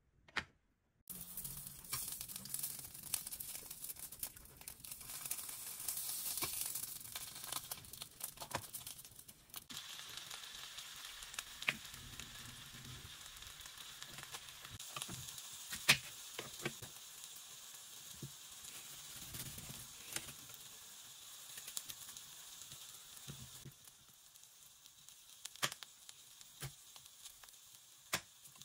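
Food sizzling in a frying pan, a steady hiss that starts about a second in, with sharp knife taps on a wooden cutting board as cherry tomatoes are sliced.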